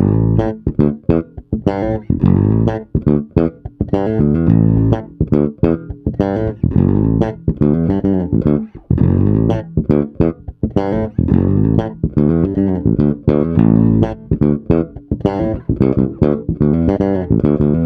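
Modern Vintage MVJ4-72 electric jazz bass played fingerstyle with its tone control rolled down, on what is thought to be the bridge pickup: a busy, unbroken line of short plucked notes.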